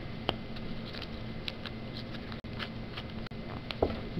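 Small scattered clicks and rubbing of an instrument-cable jack being handled as its cap is screwed back onto the cable, over a faint steady hum.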